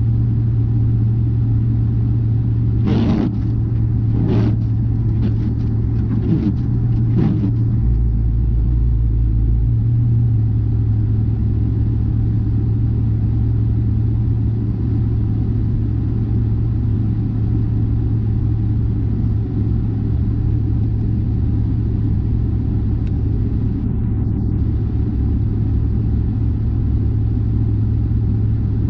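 Steady low drone of a car driving on the highway, with a few brief knocks between about three and seven seconds in.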